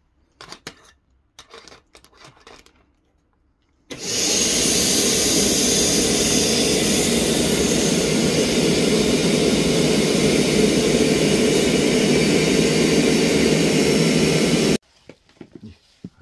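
Vacuum cleaner drawing the air out of a vacuum compression storage bag through its hose. It switches on about four seconds in, runs steadily for about eleven seconds, and cuts off suddenly near the end.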